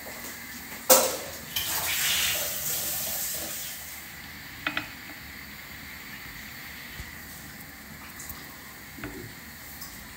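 A hard knock, then liquid pouring and splashing for about two and a half seconds, fading out. Later a light click and a small knock.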